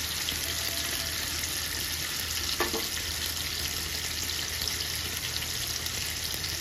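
Eggplant pieces frying in hot oil in a kadhai: a steady sizzle with fine crackles, and a single light knock about two and a half seconds in.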